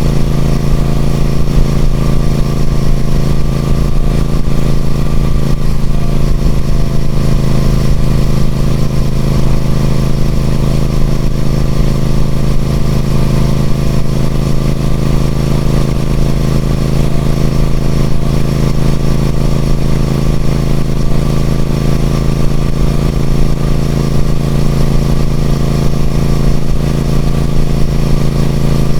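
Triumph Speed Twin 1200's 1200cc parallel-twin engine running through its stock exhaust, holding a steady engine speed with no revving up or down.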